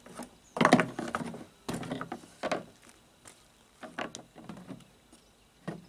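Tools and parts being handled at the engine's coolant drain: clattering and knocking in several short spells, the loudest about a second in.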